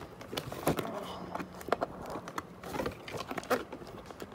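Hands handling a cardboard box, with irregular knocks, taps and scraping against the cardboard and the packaging inside.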